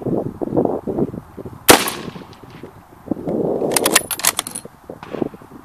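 A single shot from a 6.5×55mm Swedish M96 Mauser bolt-action rifle about a second and a half in, sharp and ringing. A couple of seconds later comes a quick run of metallic clicks as the bolt is worked to eject the case and chamber the next round. Wind rumbles on the microphone throughout.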